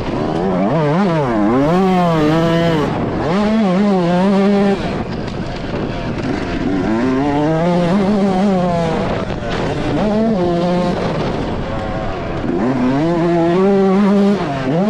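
2020 Yamaha YZ125 single-cylinder two-stroke motocross engine under hard throttle, its pitch climbing through the revs and falling back at each gear change or throttle lift, several times over.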